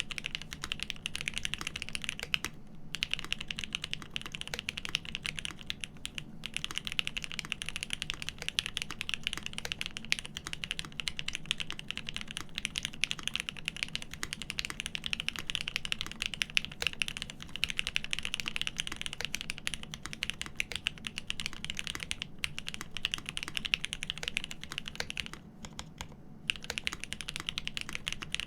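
Continuous fast typing on a GEON F2-84 mechanical keyboard with lubed Cherry Top SP Star switches on 62 g springs and an aluminium plate: a dense stream of keystrokes. It has a couple of brief pauses early on and a longer break of about a second near the end.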